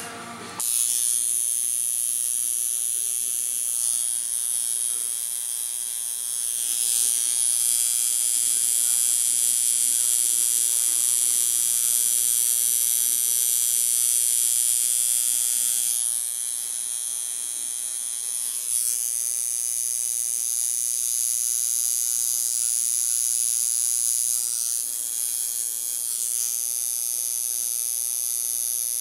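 Electric tattoo machine buzzing steadily as its needle draws fine dark lines into freshly tattooed skin. The buzz cuts out briefly just after the start, then runs on, growing stronger and weaker a few times.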